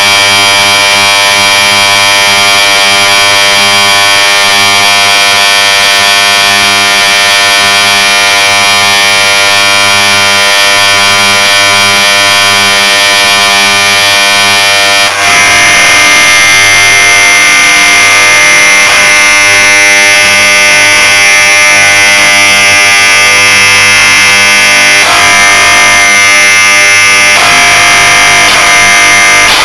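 Hermetic refrigerant compressor's electric motor running dry with its oil drained, giving a loud, steady electric buzz as it overheats and smokes toward burnout. About halfway through the buzz changes abruptly and turns harsher.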